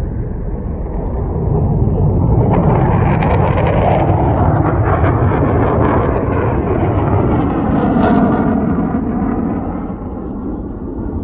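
Fighter jet engine noise as a jet flies past: a loud, rumbling rush that builds, peaks with a swishing sweep about eight seconds in, then eases off.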